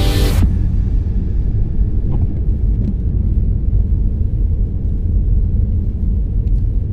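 Steady low rumble of a car driving on a snow-covered road, engine and tyre noise with a few faint ticks. A piece of music cuts off in the first half-second.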